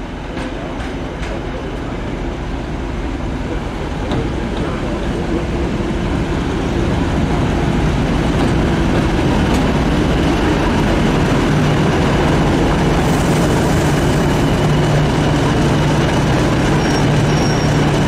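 Class 50 diesel locomotive's English Electric 16-cylinder engine running, growing steadily louder, with a steady low hum over the second half.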